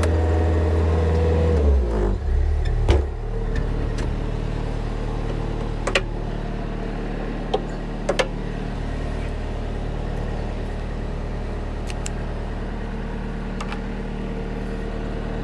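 Skid steer loader engine running at raised revs, then dropping to a steady idle about two seconds in. A handful of short, sharp metallic clanks and clicks as the muck fork attachment is fitted and its hydraulic hoses are coupled.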